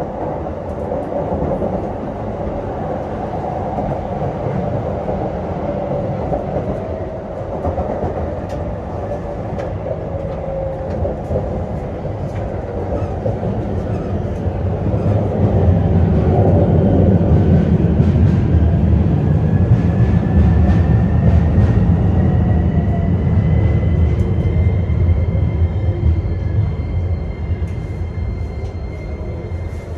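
Inside an electric commuter train: steady running noise and wheel-on-rail rumble as it runs into a station, getting louder about halfway through. In the second half a thin whine rises slightly in pitch, then holds steady.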